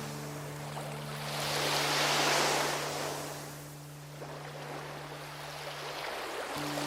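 Sea waves washing onto the shore: a hiss of surf that swells to a peak about two seconds in, ebbs, then builds again, with a steady low drone held underneath.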